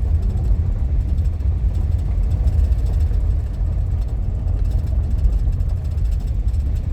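Cabin noise of a minivan driving on a rough dirt road: a steady low rumble of tyres on gravel and the engine.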